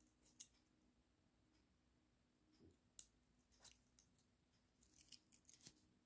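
Faint, sparse clicks of a small imitation Victorinox Classic pocketknife being handled, its little tools folded and snapped shut, with a quick run of clicks near the end.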